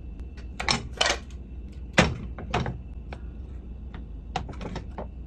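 Metal fish-shaped waffle (bungeoppang) pan being handled on a gas stove's burner grate: a series of sharp metal clacks and knocks, the loudest about two seconds in.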